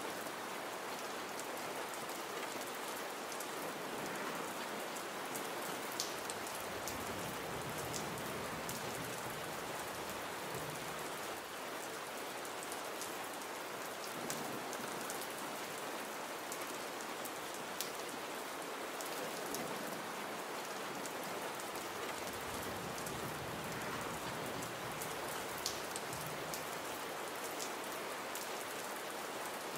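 Gentle rain falling steadily: an even hiss with scattered sharp drop ticks.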